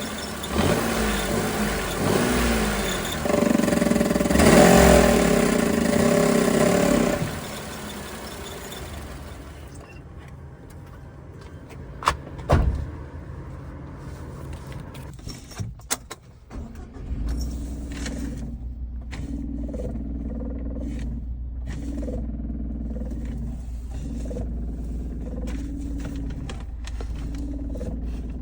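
Suzuki Every kei van engine, whose worn crankshaft thrust bearing makes the fault noise: running with its pitch rising and falling for about seven seconds, then quieter with a few sharp clicks and knocks, then settling into a steady low idle from about seventeen seconds in.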